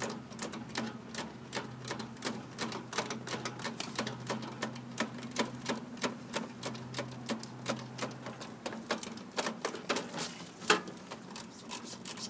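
Refrigeration service wrench ratcheting in a long run of rapid clicks as the liquid-line service valve is turned all the way down, front-seating it to pump the AC system down.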